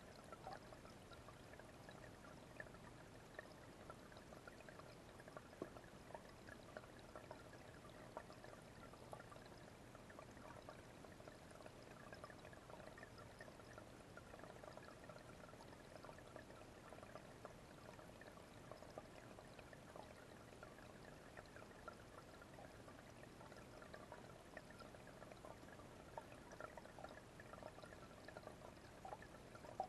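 Small garden fish-pond waterfall splashing steadily into the pond: a faint, even trickle and pour with many tiny splashes.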